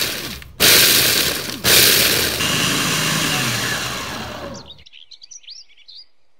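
Electric food chopper grinding cooked peanuts and sesame seeds into crumbs. It runs in three pulses, the last one longer and getting gradually quieter. Birds chirp faintly after it stops.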